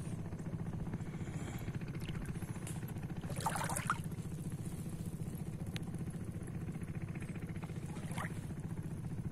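A steady low engine drone with a fast, even pulse, and a short splash of water about three and a half seconds in, with a smaller one near the end.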